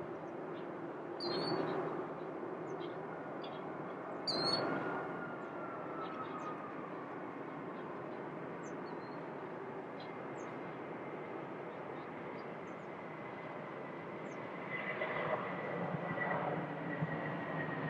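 Jet airliner engines running at a distance as a steady rushing noise, with a thin whine that falls slowly in pitch from about four seconds in and another steady whine later on. Short bird chirps come through several times.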